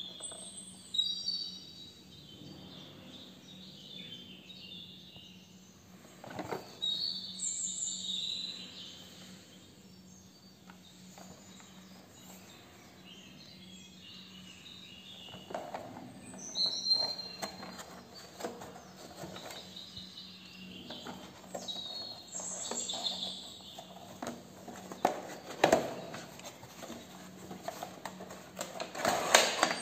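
Cardboard hair-clipper box being handled and opened, with rustles and soft knocks that are loudest near the end, while small birds chirp on and off in the background.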